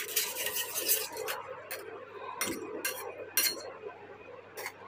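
Metal spoon stirring thin masala gravy in a stainless steel kadhai: scraping through the sauce at first, then several sharp clinks of the spoon against the steel pan.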